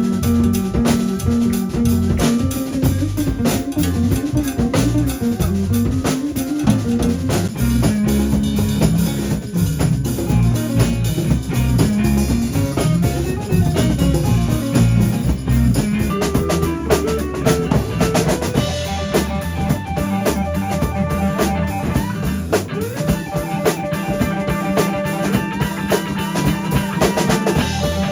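Band music with a drum kit keeping a steady beat, a walking bass line and electric guitar.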